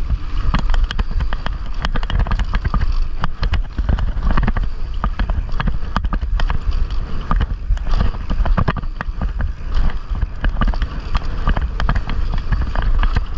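Loose GoPro mount rattling while a mountain bike rides fast over a dusty dirt trail: a rapid, irregular clatter of knocks over deep wind rumble on the microphone.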